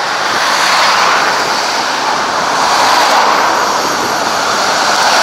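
Road traffic on a busy city street: cars passing close by in a loud, steady rush of tyre and engine noise that swells and ebbs.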